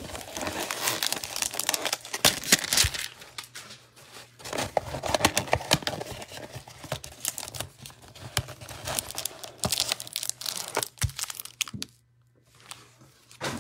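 Cardboard Donruss hanger box of trading cards being torn open by hand, and the plastic-wrapped card stack crinkling as it is pulled out: irregular tearing, rustling and clicks, with a brief pause near the end.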